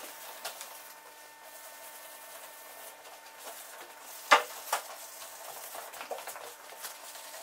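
Abrasive pad rubbed back and forth by hand over a car door's painted panel: a soft, steady scratchy scuffing. Two sharp knocks a little over four seconds in are the loudest sounds.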